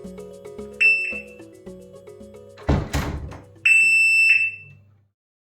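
Piezo electronic door-alarm siren giving a shrill, steady high beep: a short one about a second in, then a longer, louder one near the end, over rhythmic backing music. A short rough burst of noise comes between the two beeps, and the music fades out near the end.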